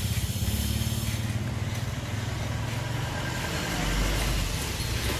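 Steady low rumble of a motor vehicle engine running nearby, over a constant street background hiss.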